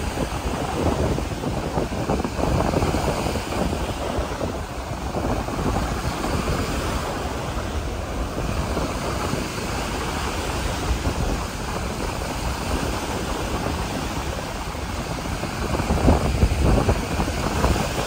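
Wind buffeting the microphone over the steady wash of ocean surf, gusting louder near the end.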